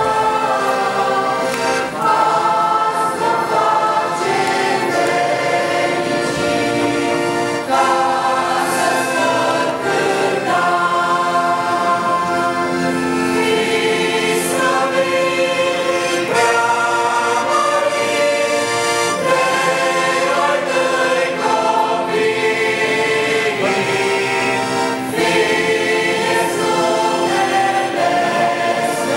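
Mixed church choir of men, women and children singing a hymn in Romanian.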